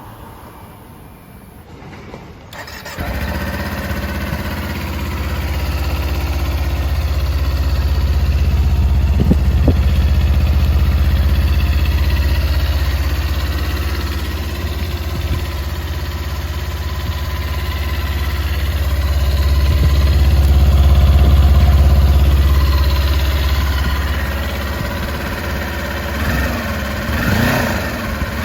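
Kawasaki Ninja 250 parallel-twin engine starting about two and a half seconds in, catching at once, then running steadily with an abnormal engine noise that marks engine trouble. The pitch wavers up and down near the end.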